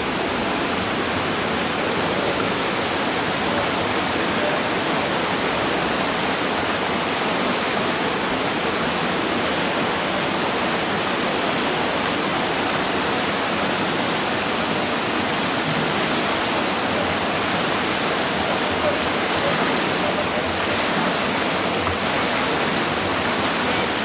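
Steady, even rushing of water in an indoor competition swimming pool hall.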